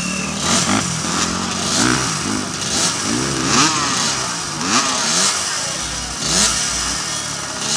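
Several two-stroke motocross bikes revving at the start line, their engine notes rising and falling again and again and overlapping.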